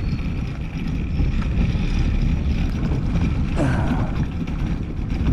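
Freedom Launcher kayak landing gear wheels rolling over pavement and a concrete boat ramp, a steady low rumble, with wind on the microphone.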